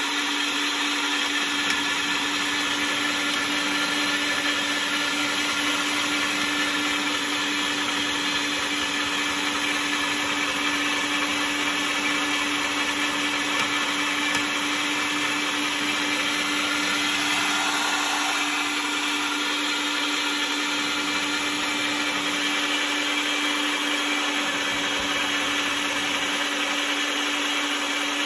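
Electric meat grinder running steadily, its motor giving an even, unchanging hum as raw meat is ground and pushed out through the grinder plate.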